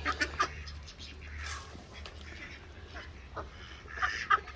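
Ducks quacking in short calls, a few just after the start and a louder cluster about four seconds in.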